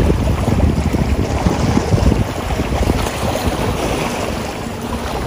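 Wind buffeting the microphone: a loud, uneven rumble that gusts and flutters throughout.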